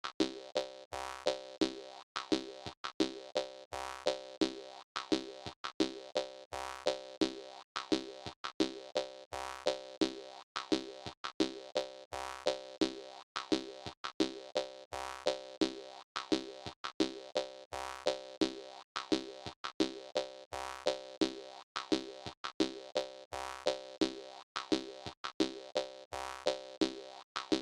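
Jaw harp playing a rhythmic, repeating twanging tune with a steady dance beat.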